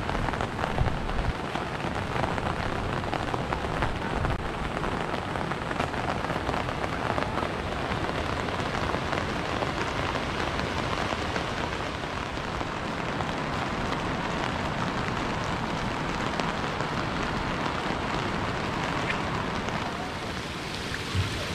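Steady rain falling, a dense even patter of many small drops.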